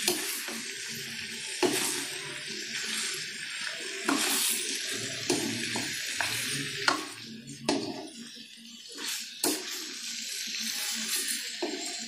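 Chopped meat sizzling in a nonstick wok while a wooden spatula stirs and scrapes it, with sharp knocks of the spatula against the pan every few seconds. Background music plays throughout.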